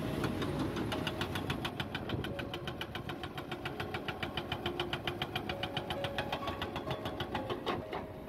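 Hydraulic rock breaker on a Volvo crawler excavator hammering rock in a fast, even series of sharp blows, about eight a second, over the machine's diesel engine running. The hammering starts about a second in and stops shortly before the end.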